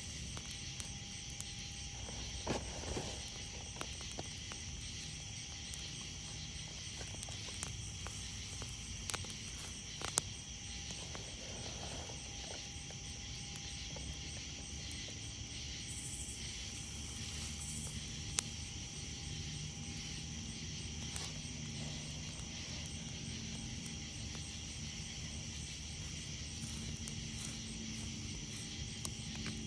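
Night insects chirring steadily in a high-pitched chorus, with a campfire crackling and popping now and then in sharp clicks over a low rumble of the burning fire.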